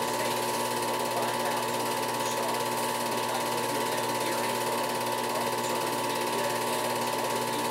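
Film projector running, its mechanism clattering in a fast, even rattle over a steady tone as the film passes through.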